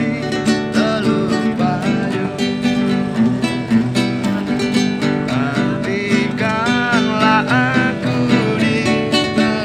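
Nylon-string classical guitar strummed and picked in a quick, steady rhythm: an instrumental passage with no voice.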